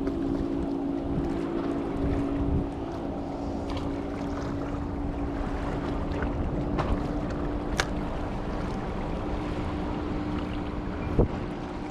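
A steady engine drone over wind and water noise, with a few sharp clicks in the second half.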